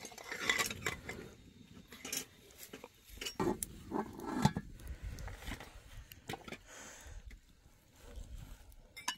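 Scattered light clinks and knocks of small glass tea cups and dishes being handled and set down.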